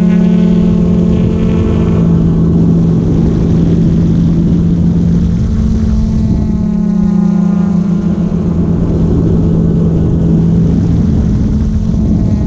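Quadcopter drone's motors and propellers humming steadily while it flies, with the pitch shifting slightly as it manoeuvres.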